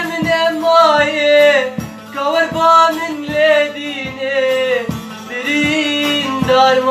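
Middle Eastern folk song: a melodic line with long gliding notes carried by a male singer, with a plucked string instrument and a steady drum beat about two to three strokes a second.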